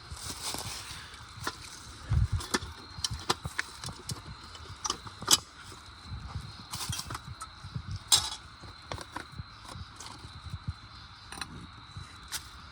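Irregular clicks, knocks and rustles of camping gear being handled and moved about, with a few sharper knocks about two, five and eight seconds in.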